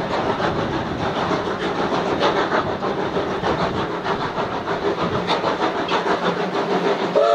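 Steam locomotive 218A working a train, its exhaust beating rapidly over a steady steam hiss. Right at the end its steam whistle starts to blow.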